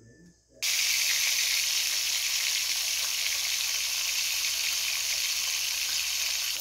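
Three whole salted fish frying in hot oil in a small pan: a steady, loud sizzle that starts suddenly about half a second in.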